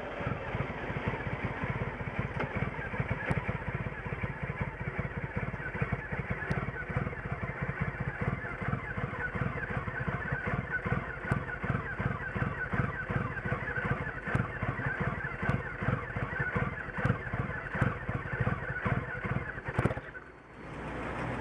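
Triumph Rocket III's 2.3-litre inline-three engine idling roughly, its exhaust pulses uneven and stumbling. Near the end the running breaks off and the sound drops away, the engine stalling from the rough idle.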